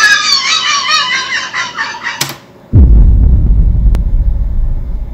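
High-pitched laughter from a crowd for about two seconds, then a click and a loud low rumble that fades slowly toward the end.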